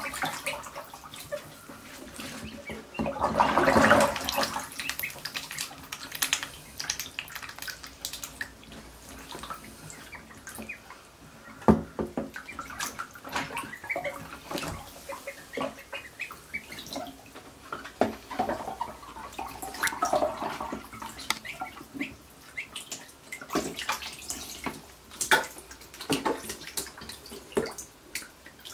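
Call ducklings paddling and dabbling in a shallow plastic tub of water: irregular small splashes and drips, with a louder splash about four seconds in and a sharp knock near the middle.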